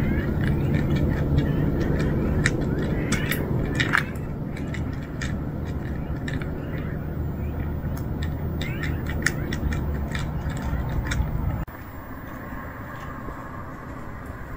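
Cats chewing and crunching food close up, a quick irregular scatter of small clicks and crackles over a low steady rumble. About eleven and a half seconds in, the rumble cuts off and the sound turns quieter.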